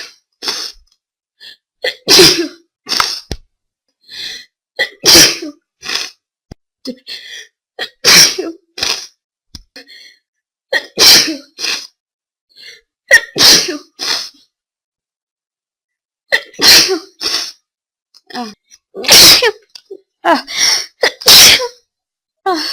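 Human sneezing, loud and forceful, over and over: about eight hard sneezes two to three seconds apart, with quieter, shorter sounds between them and a brief pause about two-thirds of the way through.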